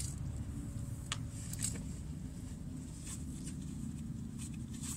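Wind rumbling on the microphone, with a handful of faint, scattered clicks and taps.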